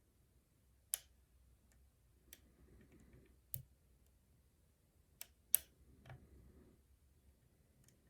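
Lock picking on the Poison challenge lock: a handful of sharp, irregular metallic clicks from the pick and tension wrench working the pins, the loudest about five and a half seconds in, with soft scraping between them.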